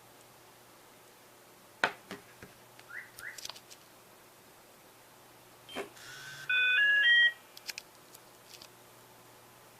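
A mobile phone plays a short melody of rising beeps, under a second long, about two thirds of the way in. Scattered clicks and two brief rising chirps come before it.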